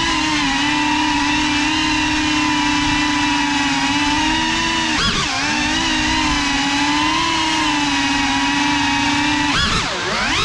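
FPV quadcopter's electric motors and propellers buzzing at a steady pitch, dipping sharply and swooping back up about five seconds in and again near the end as the throttle is cut and punched.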